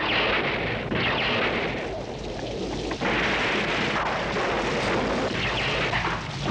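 Thunderstorm: heavy rain with repeated claps of thunder. The loudest surges come at the start, about a second in, and about three seconds in.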